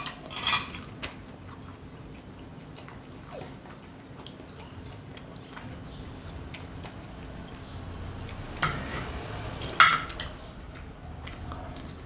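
People eating at a table: chewing and the small clicks of a metal spoon and fork against plates, with a few louder clinks or scrapes, the loudest near the end.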